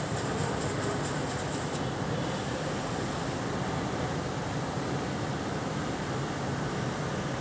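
Steady rumble and hiss of running industrial machinery, with faint rapid ticking in the first couple of seconds.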